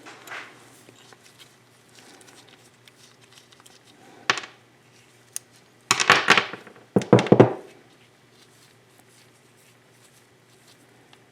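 Hand-tool work on a seized two-stroke oil pump: a sharp knock, then two short bursts of scraping and clattering as the pump and its shaft are pried and gripped without giving way.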